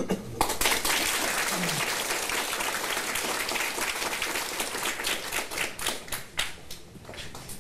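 Audience applauding: dense clapping that thins out to scattered single claps over the last couple of seconds.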